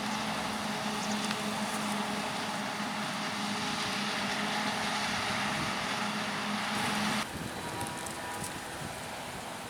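Heavy diesel farm machinery running steadily with a constant hum, changing suddenly to a quieter engine sound about seven seconds in.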